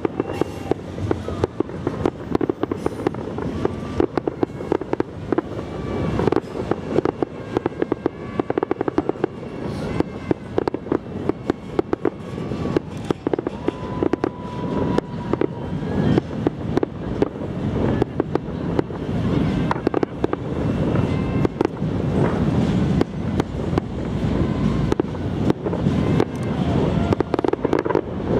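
Structure-launched fireworks display: a rapid, unbroken barrage of bangs and crackles, several a second, over a steady low rumble.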